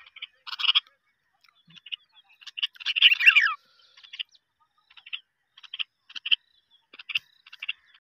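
Male sparrowhawk calling from the hand in short bursts of rapid, sharp notes, with a longer, louder chatter about three seconds in.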